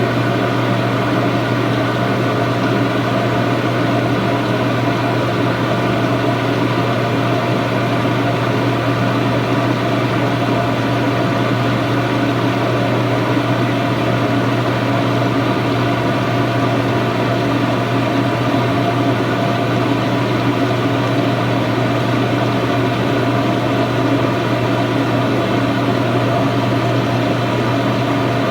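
Samsung washing machine running with a loud, steady electric hum that does not change at all.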